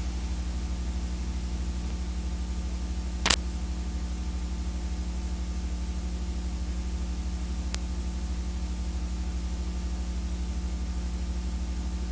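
Steady low electrical hum and hiss, the noise floor of an old analog video recording, with one sharp click about three seconds in and a fainter one near eight seconds.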